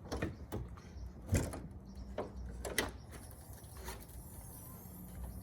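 A series of irregular knocks and clicks, about six over four seconds, the loudest about a second and a half in, over a faint steady hum.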